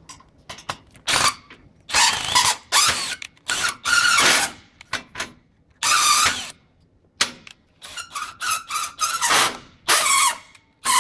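Power drill/driver run in a series of short, irregular bursts, tightening the draw rod that pulls a two-way wall connector snug, with squeaks of the metal parts as it turns.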